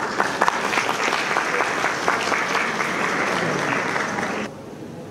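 Audience applauding in a hall, cut off abruptly near the end.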